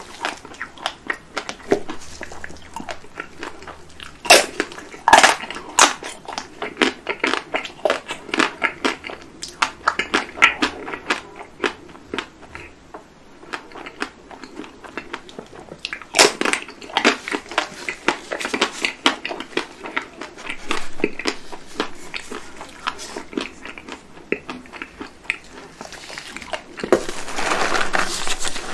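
Close-miked eating of chocolate-coated Magnum mini ice cream bars: the hard chocolate shell cracks and crunches in many sharp, irregular bites, with chewing in between. The sound gets denser and louder near the end.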